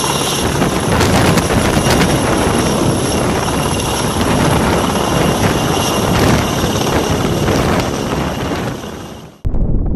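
Firefighting helicopter hovering low close by while it dips its underslung water bucket: steady, loud rotor noise with a high turbine whine over it. Near the end it fades and cuts off abruptly, giving way to wind noise.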